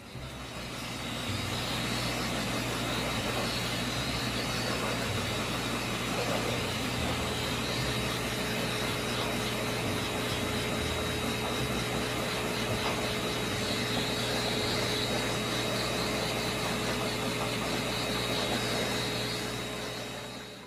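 Pet dryer blowing air through a corrugated hose onto a wet guinea pig: a steady rush of air with a thin high whine from the motor. It stops just at the end.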